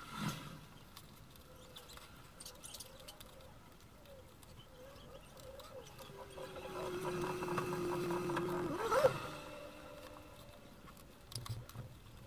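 Waxed thread squeaking as it is drawn through stitching holes in thick leather during hand saddle-stitching, with light clicks of the needles. The squeak holds a steady pitch for a few seconds, then rises sharply and peaks about nine seconds in as the stitch is pulled tight.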